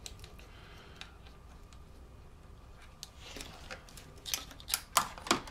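Small clicks and taps of a hand-held inspection mirror knocking against engine parts, several in the last two seconds, after about three seconds of quiet room tone.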